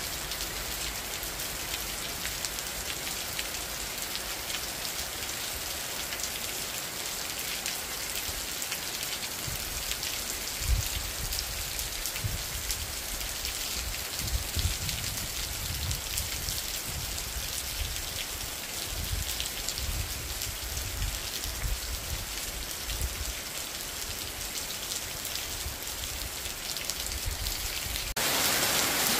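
Steady rain falling on a mountain forest, an even hiss with irregular low rumbles from about ten seconds in. Near the end it switches abruptly to louder, closer rain.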